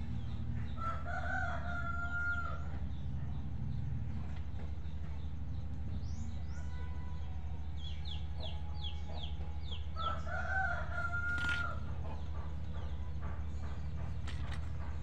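A rooster crowing twice, about a second in and again about ten seconds in, each crow about two seconds long. Between the crows comes a quick run of high chirps, over a steady low hum.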